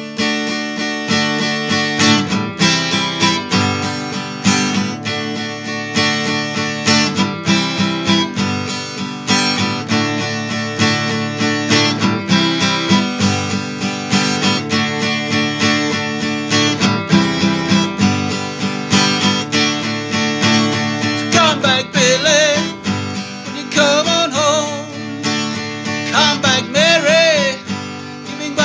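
Acoustic guitar strummed steadily in an instrumental break. From about two-thirds of the way through, a man's voice joins with a wordless, wavering melody over the strumming.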